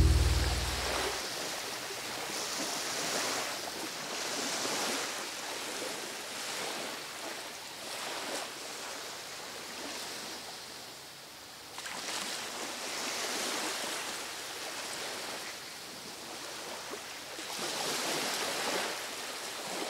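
Gentle sea waves washing onto a sandy beach, the surf swelling and easing every few seconds. The last chord of the music dies away in the first second.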